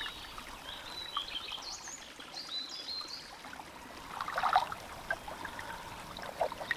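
Stream water trickling and sloshing as a cloth Millbank filter bag is dunked and soaked in a shallow spring-fed hollow, soaked so that it will filter, with a louder splash about halfway through as the bag is worked in the water. A bird chirps faintly in the first half.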